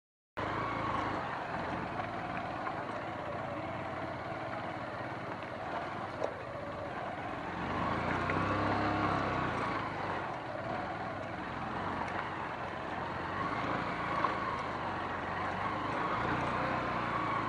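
A motor vehicle's engine running steadily as it drives, its pitch and level rising and easing a little, with a couple of brief knocks along the way.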